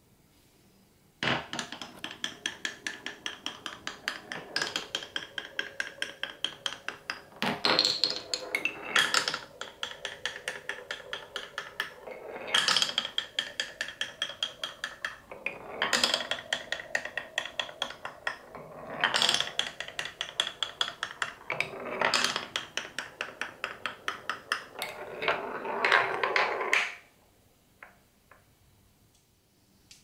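A glass marble running down a wooden block marble run, clicking rapidly as it bounces over the wavy, scalloped track. It comes in several long runs, each starting with a louder knock as it drops onto the next piece. Near the end it rolls in a dense rumble around a curved piece and stops suddenly.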